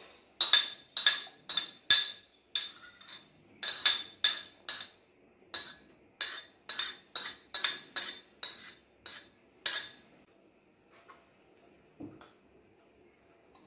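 Metal spoon clinking against a plate, about twenty quick ringing taps over ten seconds as chopped vegetables are knocked off it, then one soft knock near the end.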